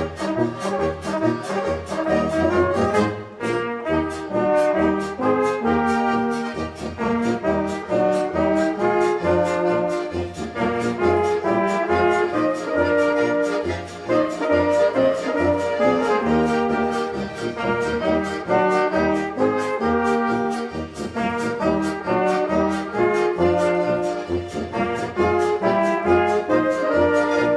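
Brass band music, trombones and trumpets playing a tune over a steady beat in the bass.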